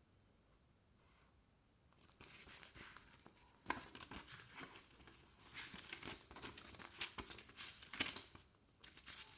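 Packaging being handled and unwrapped, crinkling and rustling with small sharp clicks, starting about two seconds in.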